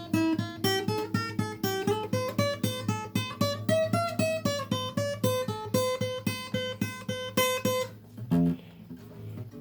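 Acoustic guitar picking a melody of single plucked notes, about three to four a second, over a steady low note. The run stops about eight seconds in, and one lower note follows.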